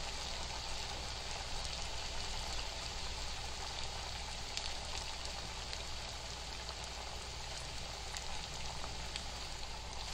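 Masala chana dal vadas deep-frying in very hot oil in a pan: a steady, even crackling sizzle.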